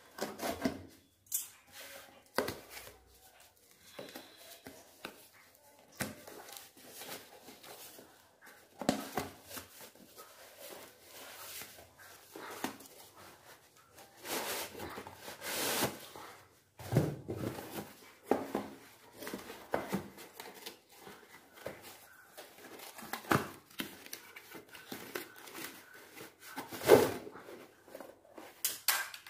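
Parcel packaging being torn and pulled open by hand: irregular bursts of tearing, rustling and crinkling, first from a courier packet and then from a taped cardboard box. The loudest tear comes near the end.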